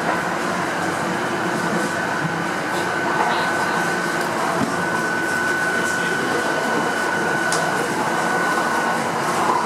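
Running noise inside a B80D Stadtbahn light-rail car travelling at speed: a steady rolling rumble and hiss, with a steady high whine over it.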